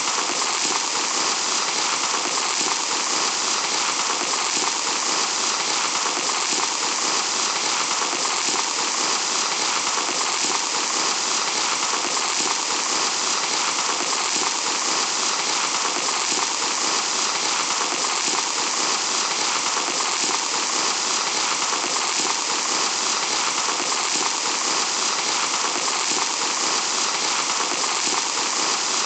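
Fine sand trickling through the neck of a glass hourglass: a steady, even hiss that never lets up.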